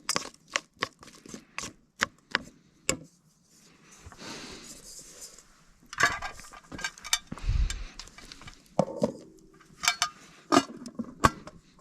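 Cookware and utensils being handled: a run of sharp clinks and knocks, with short rustling stretches in the middle and one dull thud.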